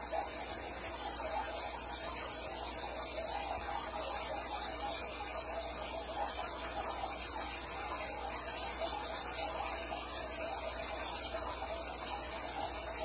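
Steady hiss with a faint low hum and no distinct events: the background noise of an aquarium tank recording.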